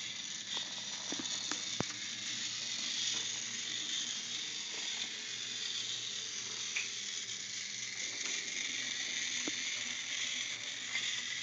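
Battery-powered toy train running along wooden track, its small motor and gears whirring steadily, with a few light clicks.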